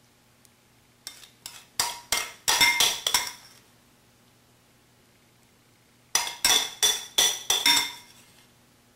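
Metal spoon clinking against a ceramic dish while scooping meat filling, in two quick runs of taps, about a second in and again about six seconds in, each clink ringing briefly.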